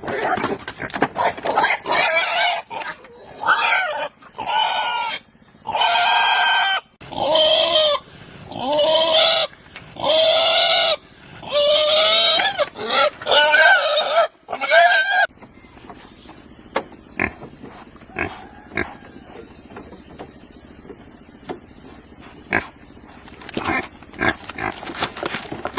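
Pigs squealing: a run of loud, drawn-out squeals, one after another, that stops about fifteen seconds in. After that only faint scattered clicks and knocks.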